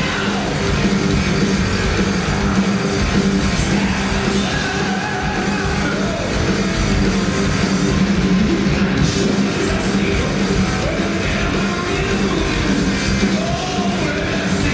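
Heavy metal band playing live at full volume: distorted electric guitars, bass and drums with a singer's voice over them, heard from within the crowd.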